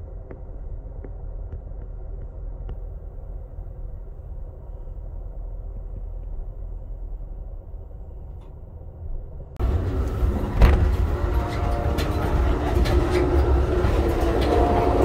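Low, steady rumble of a moving passenger train, muffled at first. About two-thirds of the way through it cuts to a louder, fuller ride noise with sharp clicks and rattles.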